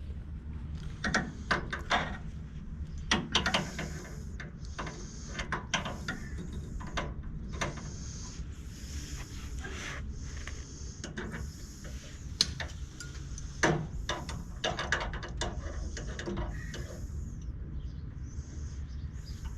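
Hand tools working on a car's front suspension: scattered metallic clicks, knocks and light scraping at an uneven pace.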